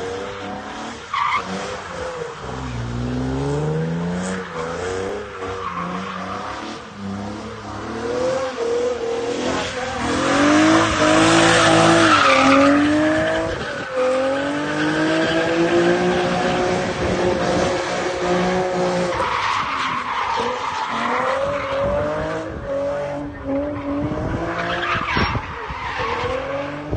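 Nissan 370Z's 3.7-litre V6 revving up and down while drifting, with the tyres squealing and sliding. The tyre squeal is loudest about ten to thirteen seconds in.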